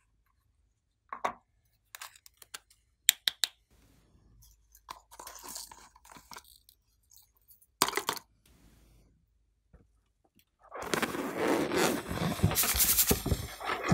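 Small plastic slime-topping containers being handled and snapped open, giving several sharp clicks, with a soft rattle of sprinkles being tipped out in between. About 11 s in, a loud, dense crunching scrape takes over and runs for about three seconds.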